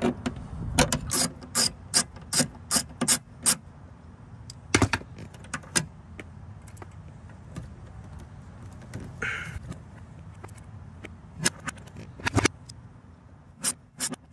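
Ratchet wrench with a 7mm socket clicking as it turns out the door speaker's mounting screws: a quick run of clicks at about two or three a second, then a few scattered clicks.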